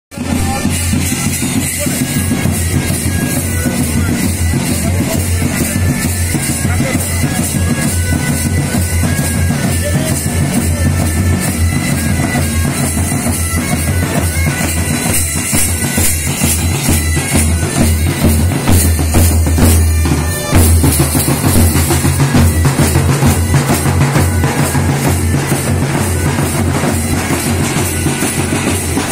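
Police marching band playing a march on the move: a steady bass drum beat under trombones and bagpipes.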